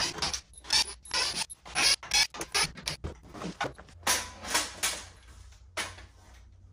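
Wooden 2x4 frame creaking, knocking and rubbing in a rapid run of short irregular bursts as the hinged stand is handled and swung up toward its ceiling mount.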